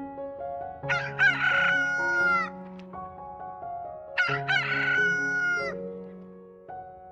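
A rooster crowing twice, each crow about a second and a half long, over background piano music.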